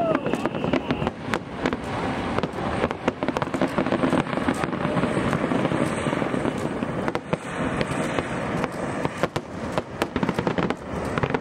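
Professional fireworks display fired from barges on a river: many aerial shells bursting in a rapid, continuous barrage of booms and sharp cracks.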